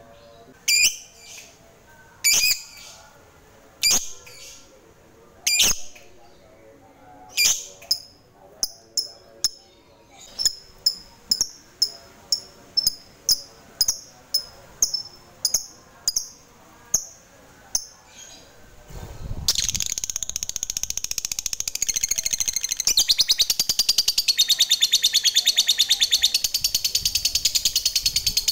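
Lovebird calling: sharp, high single chirps, spaced well apart at first and then coming faster and faster. About two-thirds of the way in they run into a long, rapid, continuous chattering trill, the 'ngekek' that lovebird keepers prize.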